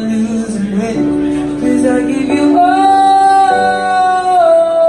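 A young male singer's voice with electric keyboard accompaniment, a slow ballad played live. From about halfway through he holds one long high note, then steps down to a lower note near the end.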